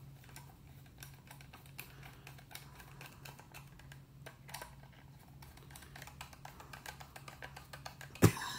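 Screwdriver driving small screws into the plastic base of a Trimline telephone: faint, irregular clicks and scrapes of the tip in the screw heads, over a low steady hum. One sharp knock near the end.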